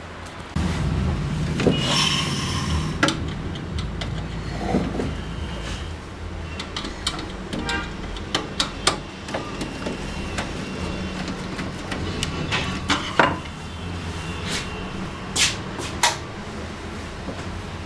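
Scattered clicks and knocks of a screwdriver and the plastic casing of a laser printer being worked on while it is taken apart, over a steady low hum.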